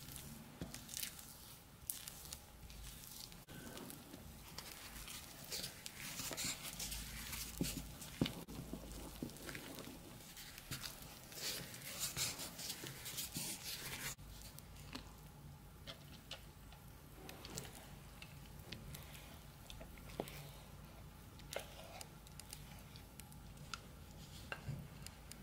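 A wooden spoon stirring thick cake batter in a ceramic bowl: wet squelching with scrapes and light knocks of the spoon against the bowl, busiest in the first half and sparser and quieter toward the end.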